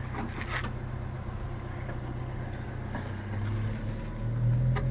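A car engine idling steadily, its low hum rising briefly about four seconds in, with a few light clicks near the start.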